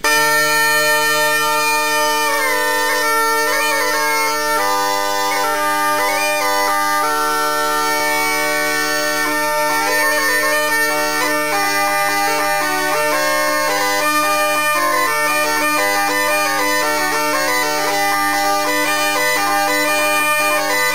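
Sicilian ciaramedda (zampogna bagpipe) playing a Christmas pastoral tune. Steady drones sound under a moving chanter melody that never breaks.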